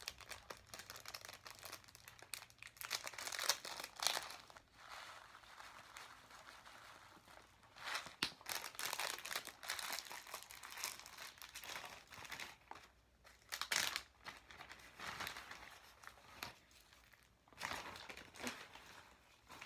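Irregular crinkling and rustling, with small clicks, from hands working with slime-making supplies: glue mixed with instant snow and plastic packets and containers of add-ins.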